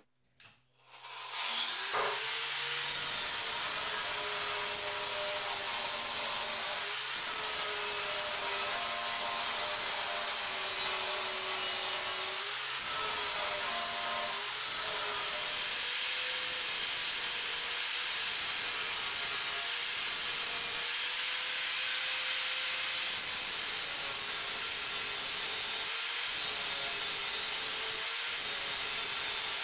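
Angle grinder spinning up about two seconds in, then grinding and sanding along the welded seam of a sheet-metal motorcycle gas tank. It gives a loud, steady high whine over a gritty rasp, and the whine dips briefly a few times.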